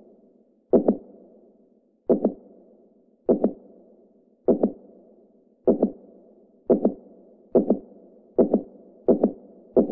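Heartbeat sound effect: a double lub-dub thump for each beat, with a fading whoosh after it. The beat starts slow, about one every 1.2 seconds, and speeds up steadily over the last few seconds.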